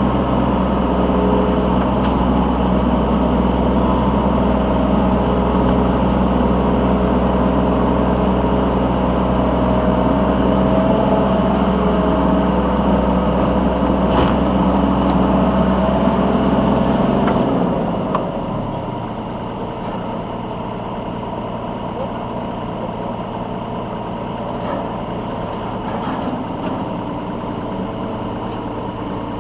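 Yanmar B3 Sigma 3-ton mini excavator's diesel engine running steadily, then its deep hum stops suddenly about two-thirds of the way through, leaving a quieter background hum with a few light clicks.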